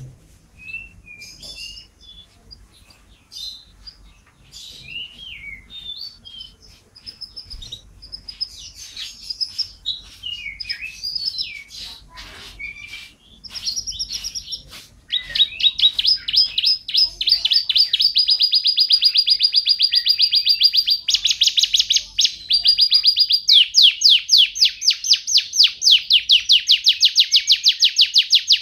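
Domestic canary singing: soft, scattered twittering and chirps at first, then from about halfway a loud, unbroken run of rapid trills that switch from one trill to another every few seconds.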